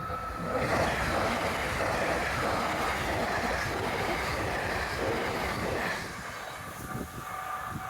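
Train passing over a level crossing: wheels and running noise swell about half a second in and die away around six seconds. The crossing's warning bell rings steadily before the train noise and is heard again near the end.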